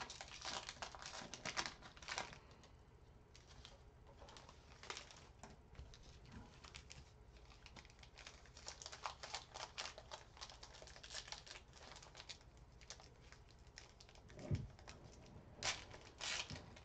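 Basketball trading cards being handled and flipped through, the cards sliding and flicking against one another in faint, irregular clicks that thin out for a few seconds in the middle. A soft knock comes near the end.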